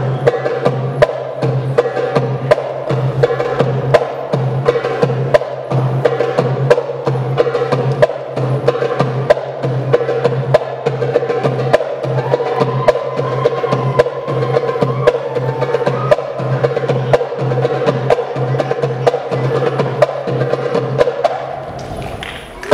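Live Arabic drum solo: an Arabic tabla (darbuka, goblet drum) played with rapid, sharp strikes in a driving rhythm, backed by a drum kit. A steady low hum sits underneath, and the drumming thins briefly near the end.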